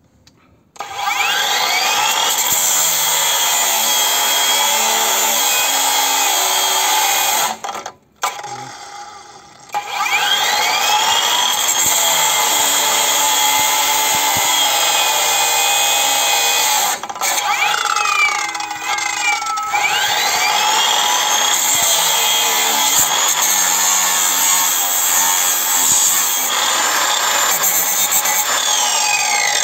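Parkside Performance 230 mm 40 V cordless angle grinder cutting steel bar with a 230 mm cut-off disc. It starts three times, each start a rising whine as the disc spins up. The running sound cuts off abruptly twice between runs, and the grinder winds down with a falling whine near the end.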